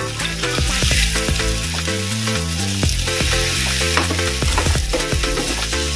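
Eggplant and shrimp in chilli paste sizzling in a frying pan while a spatula stirs and turns them, clicking and scraping against the pan many times. The paste is being cooked down over low heat until it dries.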